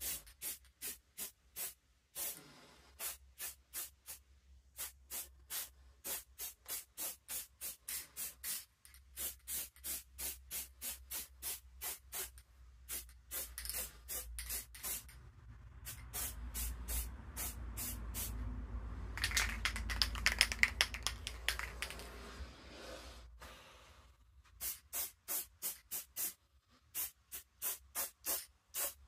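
Aerosol spray-paint can being shaken, its mixing ball rattling in a steady rhythm of about two to three clicks a second. About halfway through, the rattling gives way to a long continuous spray hiss lasting several seconds, then the shaking starts again.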